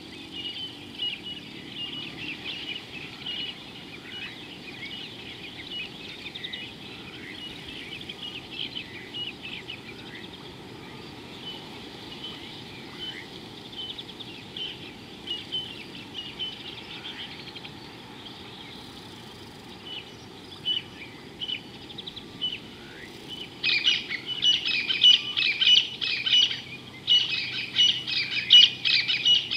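Wild birds chirping and calling continuously, with a louder, dense run of rapid chirps in the last few seconds.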